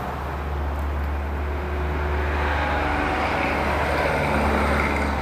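A steady low rumble with a hiss of continuous background noise, with no distinct knocks or clicks.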